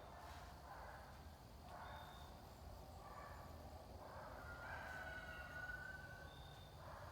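Faint rooster crowing, ending in one long drawn-out note about five seconds in.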